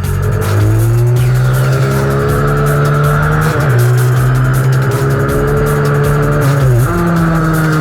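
Minibike engine running hard at high revs, its pitch climbing steadily, dipping briefly twice and climbing again.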